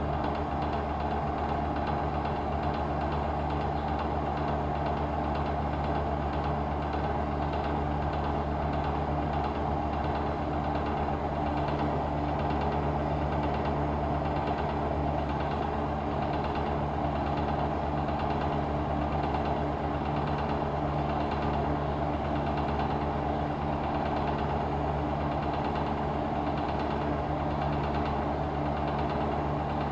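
Corona KCF-G4617BY running with a steady hum, over which comes a faint, repeated clattering knock: the abnormal 'koron-koron' noise the unit has developed.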